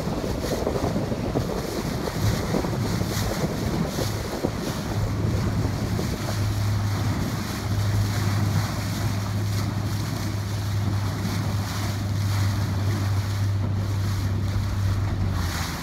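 Wind buffeting the microphone over the wash of choppy sea water, heard from a boat on open water. A steady low hum comes in about a third of the way through and holds until just before the end.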